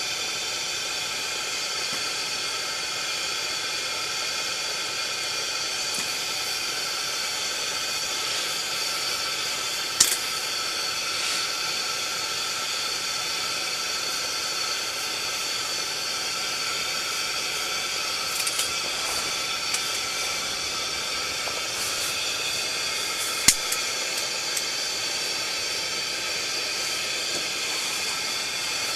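Steady hiss of a pressurized fuel burner running, with a couple of brief sharp clicks, the loudest a little past halfway.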